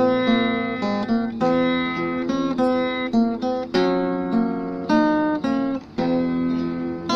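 Music: acoustic guitar playing a melody of plucked notes over chords.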